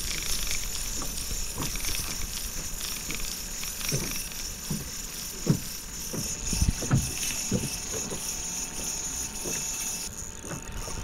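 Spinning reel whirring steadily while a hooked fish is played on a bent rod, with a few short low thuds over it. The whirring cuts off suddenly about ten seconds in.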